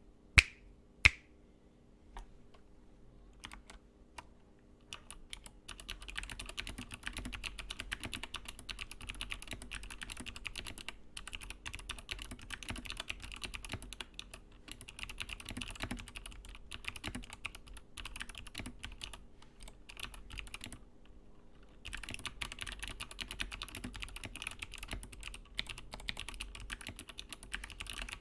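Mechanical keyboard with clicky Kailh Box Pale Blue clickbar switches being typed on quickly, in a dense run of crisp clicks. The typing stops briefly about two-thirds of the way in, then starts again. Two sharp snaps come first, within the first second or so.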